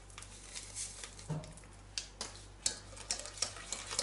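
Wire balloon whisk stirring a thick egg, sugar and flour mixture for pastry cream in a stainless steel pot, with scattered light clicks of the whisk against the pot, more frequent near the end.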